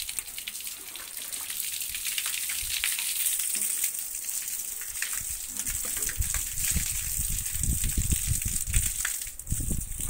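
Water from a hose gushing and splashing while a solar water heater's tank is flushed out with water pressure. Irregular low thuds join in from about halfway through.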